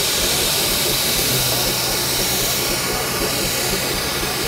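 A 1906 portable steam engine hissing steam steadily, with a low steady hum coming in about a second in.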